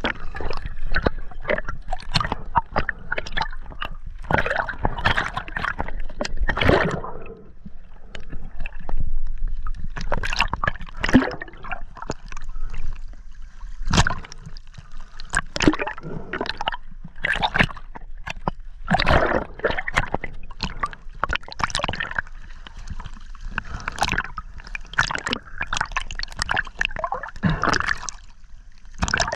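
Underwater sound picked up by a diver's action camera: water gurgling and sloshing around the housing, with many irregular knocks and clicks as the diver swims over the reef. The camera breaks the surface near the end.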